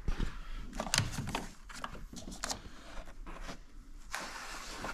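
Wiring being handled by hand in an engine bay: irregular rustles, scrapes and light clicks.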